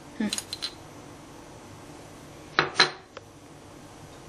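Metal teaspoon clinking against a small ceramic cup and a glass bowl as balsamic vinegar is spooned into the dressing: a few light clicks about half a second in, then two louder clinks a little before three seconds in.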